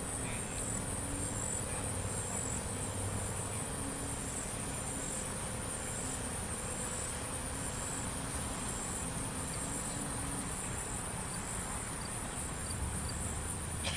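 Insects chirring in a steady high-pitched chorus with an even pulse.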